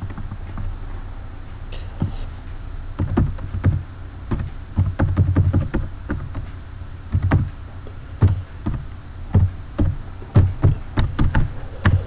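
Computer keyboard being typed on: irregular keystrokes with dull thuds, starting about three seconds in, over a steady low hum.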